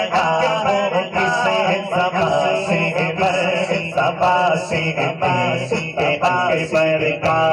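A man chanting Islamic devotional verse into a microphone, in long, melodic, ornamented phrases.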